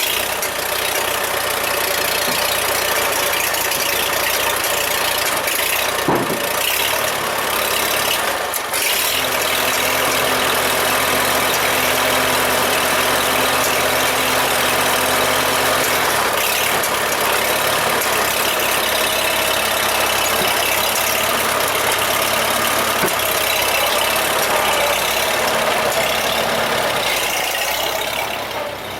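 An engine running steadily under a loud, even rushing noise; a low steady hum comes in about nine seconds in and fades near the end.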